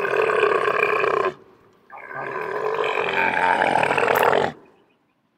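A camel calling twice. It makes long, throaty groans: the first ends about a second in, and the second lasts about two and a half seconds.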